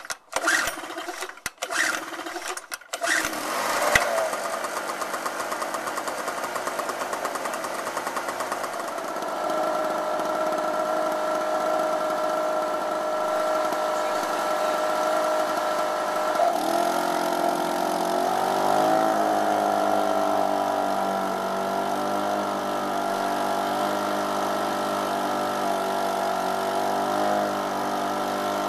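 Small 63cc portable generator engine being pull-started with the choke on after a month unused with its carburettor drained: several quick rope pulls, then it catches about four seconds in and keeps running. The engine note shifts around nine seconds in and changes again about sixteen seconds in, where it deepens and wavers.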